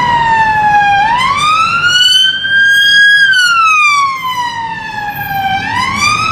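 British police car siren on a slow wail. The pitch falls for about a second, climbs for two seconds, sinks again for two and a half, then starts climbing once more near the end.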